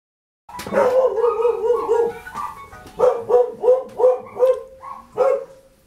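Dog barking: a wavering, howl-like call at first, then a quick run of high yelps about three a second that fade away near the end.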